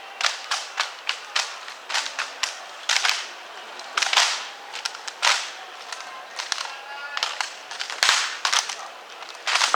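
An honor guard rifle drill team's rifles clacking as hands slap, spin and catch them, sharp claps coming irregularly, several a second. Two deeper thuds, about three and eight seconds in, stand out among them.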